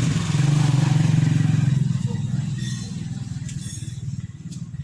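A motor-vehicle engine running with a steady, rapidly pulsing note. It is loud for about the first two seconds, then gradually fades.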